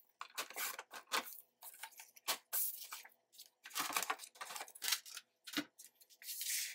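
Sliding paper trimmer cutting a strip of patterned paper, with the paper being handled: a string of short scraping and rustling sounds, with a longer hiss near the end.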